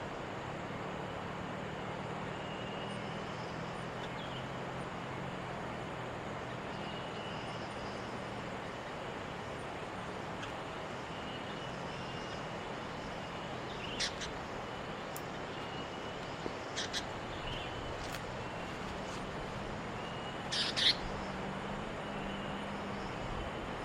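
Birds chirping: faint short calls repeating through a steady background hiss and low hum, with a few sharper, louder chirps in the second half, the loudest pair about three seconds before the end.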